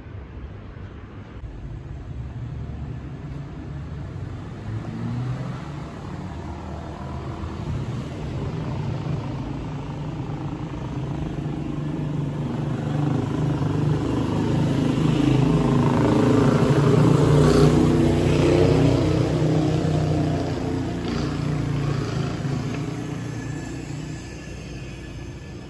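A passing vehicle's engine: a steady low drone that grows slowly louder, peaks about two thirds of the way through, and fades away.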